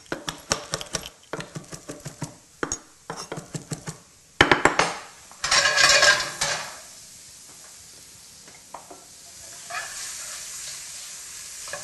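Chef's knife chopping parsley on a wooden butcher block in quick, even strokes. About four seconds in a loud clatter and a burst of sizzling from a skillet on the stove, settling into a steady sizzle with a spoon scraping and stirring in the pan.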